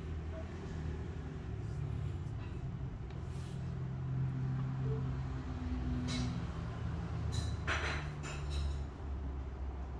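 A steady low mechanical hum, with a few short hissy rustles about six seconds and eight seconds in.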